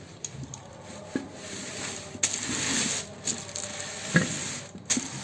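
Small plastic fittings and tubing of a reverse-osmosis water purifier being handled during assembly: scattered clicks and rustling, with a hissy rustle about two seconds in and a sharp click about four seconds in.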